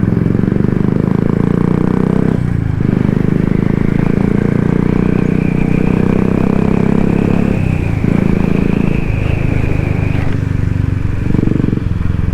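Royal Enfield Classic 350's single-cylinder engine running as the motorcycle is ridden, its note dipping briefly twice, about two and eight seconds in.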